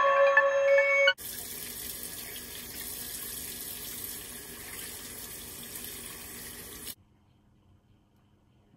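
A bathroom faucet runs steadily into a sink, an even hiss of water that starts about a second in and cuts off suddenly near the end. In the first second a few held musical tones fade out.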